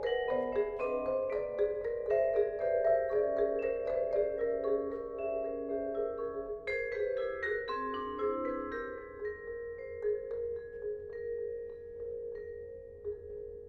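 Vibraphone and marimba playing a dense flow of separately struck notes, many of them left ringing. The notes thin out after about ten seconds, leaving a few sustained vibraphone tones that fade away.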